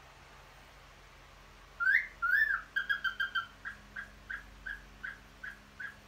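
Male cockatiel's courtship whistling. About two seconds in comes a loud two-note wolf whistle, a rising note and then a rise-and-fall note. A quick run of short notes follows, then a string of even chirps about three a second.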